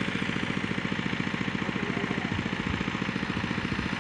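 A small engine idling steadily, with an even, rapid pulse and no revving.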